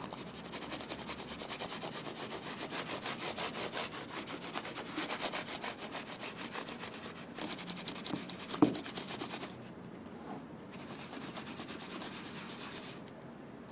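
Yellow cleaning putty rubbed briskly back and forth over the keys of a slim white keyboard: a rapid, scratchy scrubbing. It grows quieter for the last few seconds.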